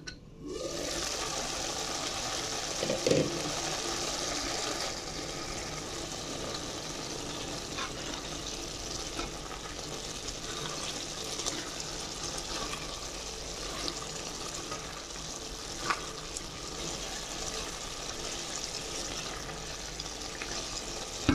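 Pan of collard greens (gomen) and beef simmering and sizzling steadily in its cooking liquid, with a few small pops, as the added water cooks down.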